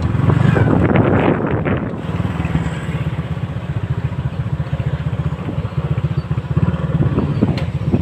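Small motorcycle engine running steadily while riding on a rough dirt road, with a fast low pulsing. Wind buffets the microphone in the first two seconds.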